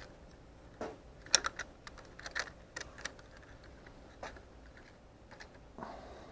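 Hard plastic model-kit parts clicking and tapping as small pieces are handled and pressed into a clear plastic cylinder head. An irregular scatter of sharp clicks, the loudest about a second and a half in.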